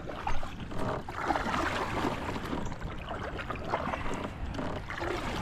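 Water splashing and small knocks and rustles around a fishing kayak, with one sharper knock shortly after the start.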